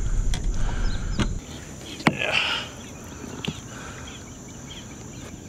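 Low rumbling outdoor noise with a few sharp clicks that cuts off about a second and a half in. It gives way to a quieter stretch carried by a steady, high-pitched drone of insects such as crickets, with a short hissing burst just after two seconds.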